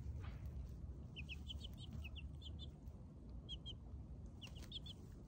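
Young chicks peeping: short, high, rising chirps in a quick run from about a second in, then a few more near the end, over a faint low rumble.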